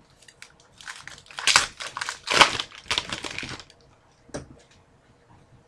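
A card pack wrapper being torn open and crinkled. There are several loud rips between about one and two and a half seconds in, then a single short click.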